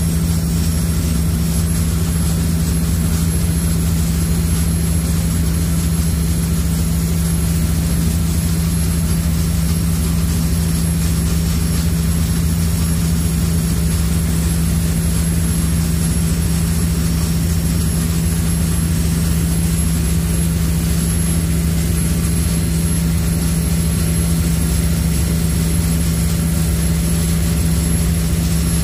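High-speed passenger ferry's engines running at cruising speed: a loud, unchanging drone with a strong low hum.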